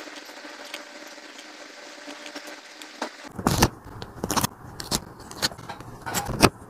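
Paper and stationery being handled while a journal page is laid out. A low steady hiss, then from about three seconds in a run of sharp, irregular rustles and taps.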